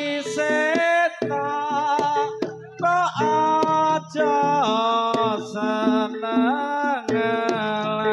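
Live Javanese jaranan music: a loud melody line of held notes that slide and bend between pitches, over a steady low drone and sharp regular drum strokes.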